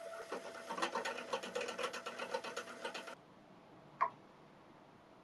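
Milling machine face mill taking a light interrupted cut across a metal ball: rapid, even ticking as the cutter inserts strike the work, over a steady tone. The sound cuts off suddenly about three seconds in, and one light click follows about a second later.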